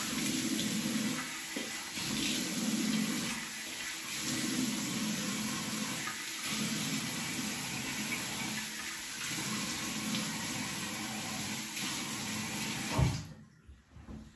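Water running from a tap into a bathroom sink as a face is rinsed of shaving lather, with a splash every second or two. The water stops suddenly near the end with a brief knock.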